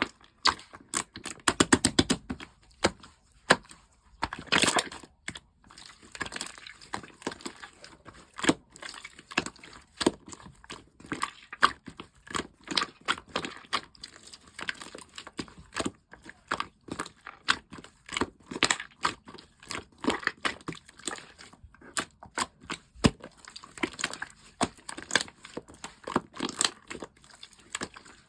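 Hands squishing, pressing and stretching a glossy liquid slime, giving irregular wet clicks, pops and crackles, denser and louder in clusters about a second or two in and again around five seconds in.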